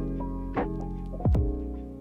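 Music with held chords and a deep drum hit about every three-quarters of a second.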